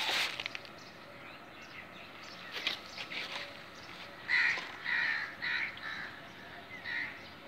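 Bird calls: a sudden sharp sound at the start, then a run of four short calls about four seconds in and one more near the end.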